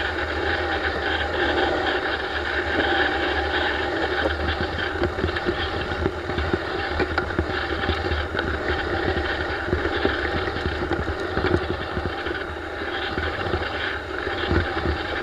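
Kawasaki race motorcycle engine running steadily at low revs, around two to three thousand rpm, with no revving.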